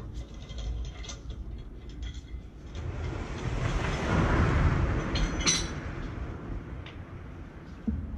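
Light metallic clinks of hands and tools at a car's wheel hub during a tyre change, the sharpest one about halfway through, while a rushing noise swells and fades over about three seconds in the middle.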